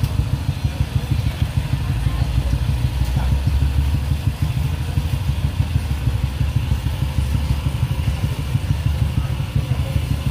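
A steady low engine rumble running without a break.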